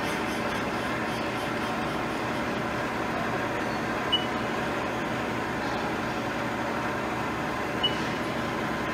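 Haas CNC mill running steadily with its spindle turning an edge finder at 1000 rpm. Two short, high chirps come about four seconds in and near the end.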